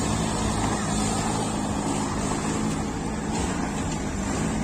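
Forklift engine running steadily at idle, a constant low drone.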